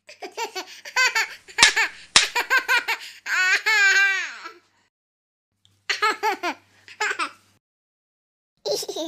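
Bursts of high-pitched human laughter, stopping and starting with short silent gaps. One longer drawn-out laughing note comes about a third of the way in.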